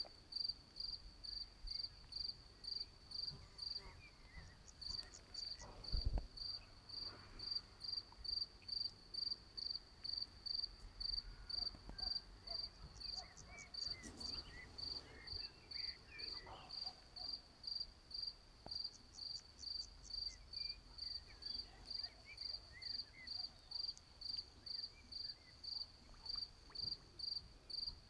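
A cricket chirping steadily, about two and a half high-pitched chirps a second. Faint bird calls come now and then, and a single low thump sounds about six seconds in.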